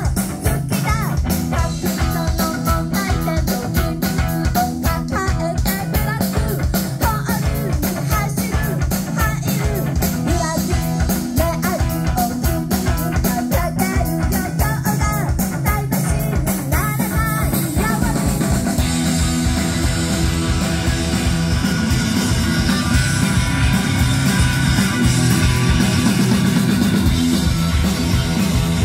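A live rock band playing: electric guitar, drum kit and a man singing. About two-thirds in the vocals drop out and the band plays on louder and denser.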